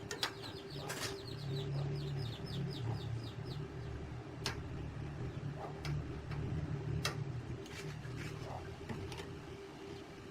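Birds chirping in the background, with a low sound from about a second in until near the end and about half a dozen sharp clicks. No power tool is running.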